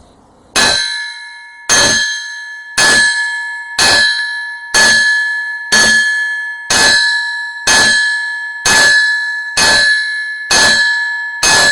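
A hammer striking a length of steel railroad track used as a makeshift anvil, about a dozen blows at roughly one a second. Each blow rings like a bell, with clear high tones that fade before the next strike.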